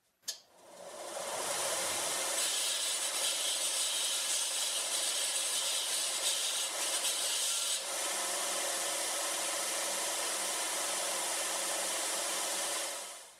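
Combination bench grinder and belt sander switched on with a click and spinning up to speed. A steel tube is then sanded against the running belt for about five seconds, giving a harsh rubbing sound, before the machine runs on more steadily. The sound dies away near the end.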